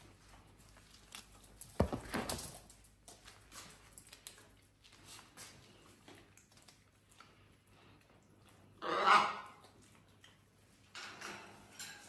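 A sharp knock about two seconds in, then one short, loud call from a pet animal about nine seconds in, with faint shuffling between.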